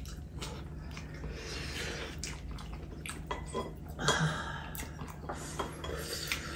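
Eating at the table: chewing, with light clicks of chopsticks and a spoon against ceramic bowls, over a faint steady hum. Two louder wet, hissing sounds, of porridge being spooned and slurped, come a little after a second in and about four seconds in, the later one the loudest.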